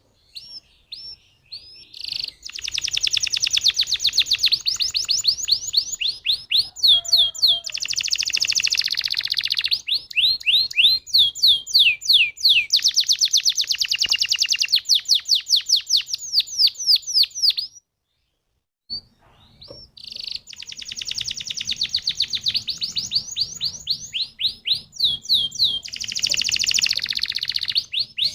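Domestic canary singing long rolling trills: fast runs of repeated rising notes alternating with dense buzzy rattles. There is a silent break of about a second roughly two-thirds of the way through.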